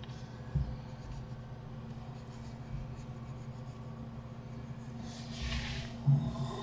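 Desk handling noise over a steady low hum: a soft thump about half a second in, then near the end a brief scratchy rub followed by a sharper thump.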